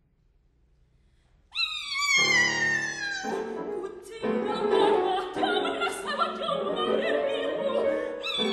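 Near silence for the first second and a half, then a soprano sings a high note that slides downward. Piano chords come in about two seconds in, and near the end the soprano sings another high note sliding down.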